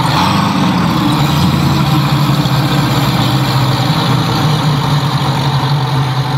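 Seven Marine 557 outboard engines, supercharged GM LSA V8s, running steadily: a low, even engine note with no change in revs.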